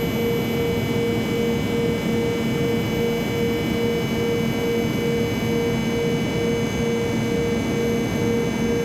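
Jet aircraft engine running steadily: a constant rush of noise with a steady low hum and several thin, high whining tones.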